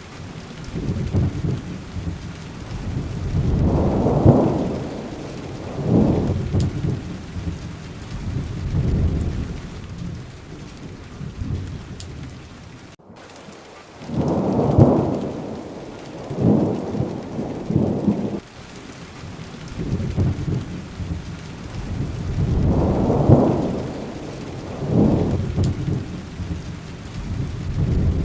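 Steady rain falling, with rolls of thunder rumbling low again and again, a few seconds apart. There is a momentary dropout of the sound about halfway through.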